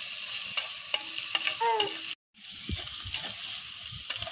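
Onions with ginger and garlic paste sizzling in hot oil in a clay pot, stirred and scraped with a metal slotted spatula, whose clicks and knocks against the pot come through the steady sizzle. The sound drops out for a moment about two seconds in.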